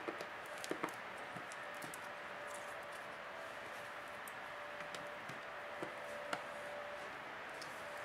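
Small, irregular plastic clicks and light scraping as a plastic opening pick is worked along the edge of a Samsung Galaxy Tab 3 tablet, prying its frame and clips apart. The clicks are scattered, a few close together about a second in, over a faint steady hiss with a thin steady tone.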